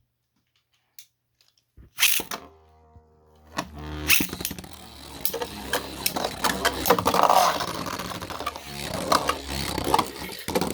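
Beyblade tops launched with a sharp snap, then spinning and clashing in a plastic stadium: a steady whir with rapid clicks and knocks of the tops striking each other and the stadium walls.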